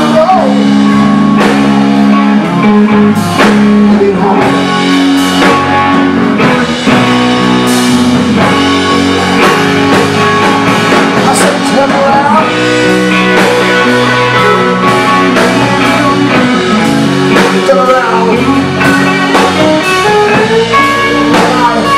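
Live blues-rock band playing: an electric guitar carries the lead, with bent notes, over bass guitar and a drum kit.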